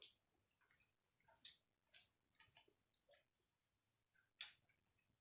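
Faint eating sounds: irregular soft wet clicks and squishes of chewing a rice and curry meal, a few a second, with a slightly louder click about four seconds in.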